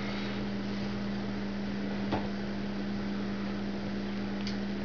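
A steady electrical hum with an even hiss behind it, unchanging throughout.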